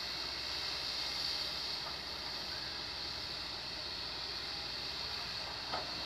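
Kobelco crawler excavator's diesel engine running steadily while it works the boom and bucket, a constant drone under a high hiss, with a few short knocks near the end.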